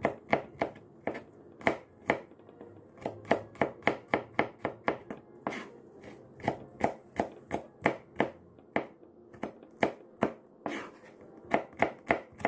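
Chef's knife slicing garlic cloves on a plastic cutting board: a run of sharp knocks as the blade strikes the board, about three a second, with short pauses between runs.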